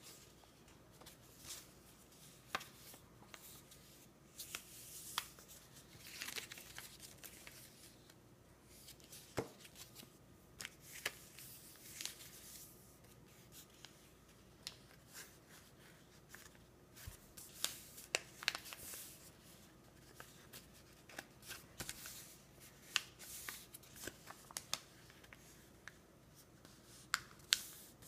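A sheet of paper being folded into a paper airplane by hand on a tabletop: irregular rustling and sliding, with short sharp clicks and taps as fingers press the folds flat.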